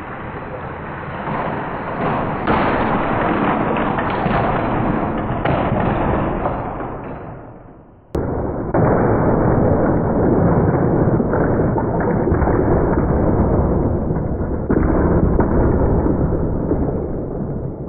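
Lego trains crashing and derailing: a long, loud rumbling crash noise that breaks off about eight seconds in and starts again at once.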